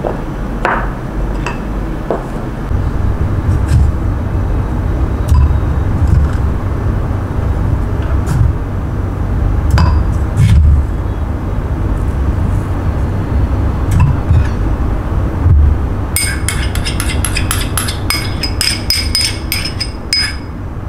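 Spoons clinking and knocking against glass seasoning jars and a ceramic bowl as seasoning is scooped onto chicken, with a quick run of ringing clinks near the end. A low rumble with dull thumps runs underneath.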